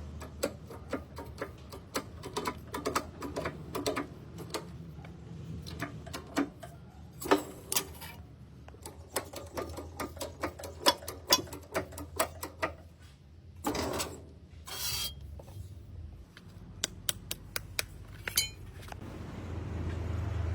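Irregular light clicks and taps, some in quick runs, of tools at work, with two short noisy bursts about two-thirds through, over a low steady hum.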